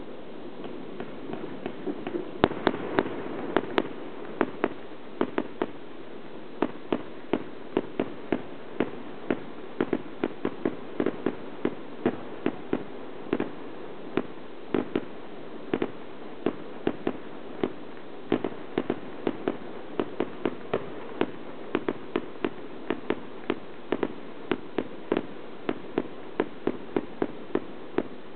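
Fireworks display going off: a rapid, irregular string of sharp bangs, about two or three a second, with a denser cluster about three seconds in.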